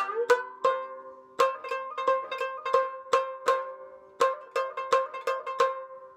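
Shamisen played solo: plucked notes about two or three a second, with a short upward slide on a note just after the start. A steady low tone rings on underneath, the low string resonating through the instrument. The last note dies away near the end.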